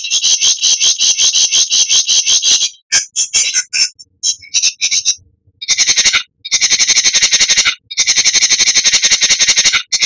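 Songbird's rapid chattering call, a fast rattling run of short, high, repeated notes. It comes in a bout of about three seconds, then scattered broken notes, then two more long bouts from about six seconds in.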